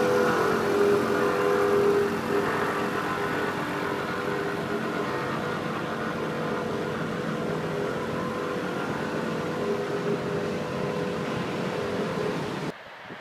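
Tandem asphalt rollers' diesel engines running steadily while the rollers compact fresh asphalt: a continuous machine drone with a steady hum that fades and returns. Near the end it cuts off abruptly, leaving a much fainter background of wind and traffic.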